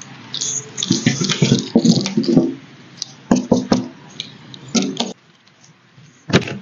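Rustling and scraping handling noise from a small clip-on microphone hanging on the car key, then a few sharp clicks as the Volkswagen Lamando L's rear VW badge boot release is pressed. Near the end there is one sharp clunk as the front door handle is pulled and the latch lets go.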